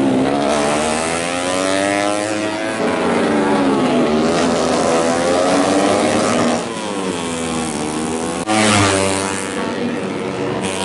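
Tuned four-stroke underbone racing motorcycles running hard on the circuit, their engine pitch rising and falling repeatedly as they rev and pass. A louder bike comes in suddenly about eight and a half seconds in.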